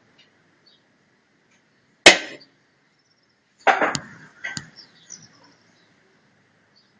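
A single sharp knock about two seconds in, then a short clatter and two smaller knocks, like hard objects being struck or set down.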